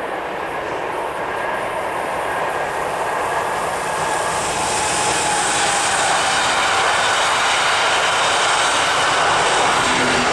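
SBB InterRegio passenger train passing close on a curve: the rumble of its coaches' wheels on the rails grows louder over the first few seconds as the train runs by, with a faint wheel squeal from the curve.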